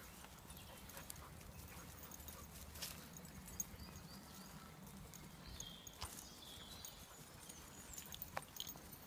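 Faint footsteps and dog paws on a dry earth woodland path, with scattered small clicks and rustles over a low steady rumble.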